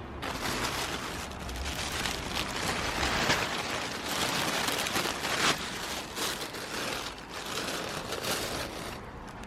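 Continuous rustling and crinkling as a shipped potted plant is handled in its packaging, with many small crackles.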